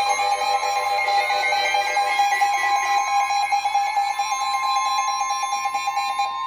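Emergency Alert System attention signal: loud, steady alarm tones, several of them sounding together, heralding a severe thunderstorm warning. A higher tone slides slowly upward over the first few seconds.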